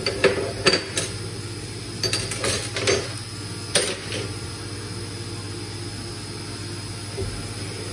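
Metal tools and parts clinking and knocking against a steel workbench as they are picked up and set down, with several sharp knocks in the first four seconds. A steady low hum runs underneath.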